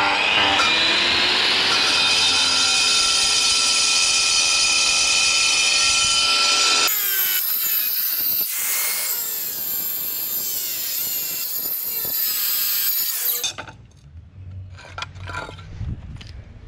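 Angle grinder cutting a stone coping slab: the motor spins up at the start, runs with a steady high whine, then its pitch wavers from about halfway through. It cuts off suddenly a few seconds before the end, leaving quieter knocks and clatter.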